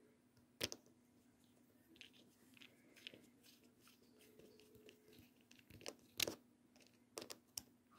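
Scattered sharp clicks and taps from fingers and a plastic pry tool pressing parts into a Redmi Note 4 smartphone's frame, over near silence. The loudest clicks come about half a second in and just after six seconds, with a few quick ones near the end.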